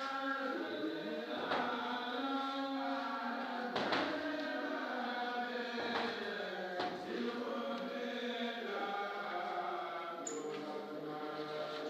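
Music of voices singing together in a chant-like style with held notes, with a sharp knock-like beat every two to three seconds.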